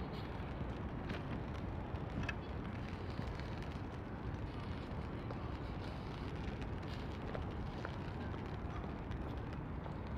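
Steady rain ambience: an even hiss of rainfall with scattered faint drip ticks over a low, steady rumble.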